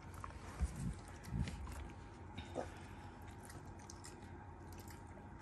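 Black Shiba Inu faintly chewing dry kibble from its bowl, a few soft crunches in the first second and a half, then little more than faint background.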